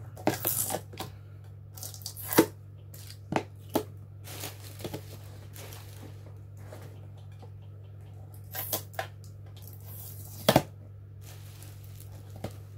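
Clear plastic display box being opened by hand: short bursts of tearing tape and rustling, clicking plastic, with a sharp click near the end, over a steady low hum.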